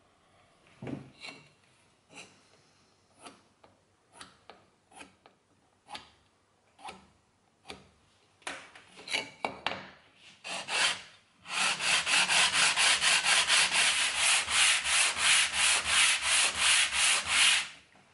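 A small cypress piece edged with ebony rubbed back and forth on sandpaper glued to a flat board. It starts with separate strokes about a second apart, then about two-thirds of the way in it turns into a fast, steady run of about five strokes a second, which is the loudest part.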